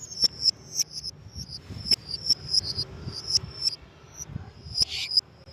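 Lovebird chattering: a fast run of short, high chirps, several a second, with sharp clicks among them.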